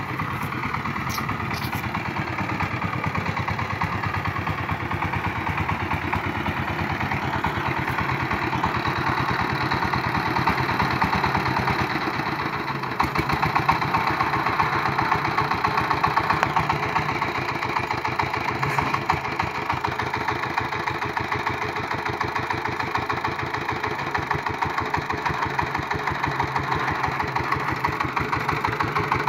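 Single-cylinder diesel engine of a two-wheel walking tractor chugging steadily as it hauls a loaded log trailer uphill; it gets louder about halfway through as it comes closer.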